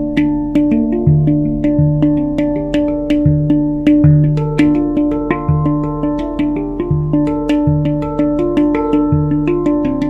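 Handpan played with the hands: a steady flow of struck steel notes, several a second, each ringing on under the next, with a deep low note coming back about once a second.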